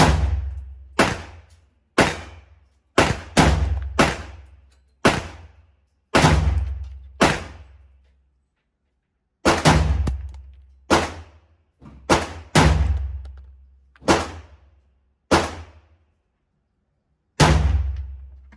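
Semi-automatic 7.62x39 AR-15 pistol firing a slow string of about seventeen shots, mostly about one a second with a few quicker pairs and a short pause about eight seconds in. Each shot is a sharp report whose tail dies away over about a second.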